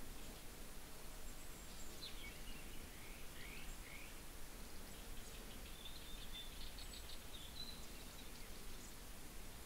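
Faint outdoor ambience: birds chirping in short calls over a steady hiss, with a quick run of chirps in the second half.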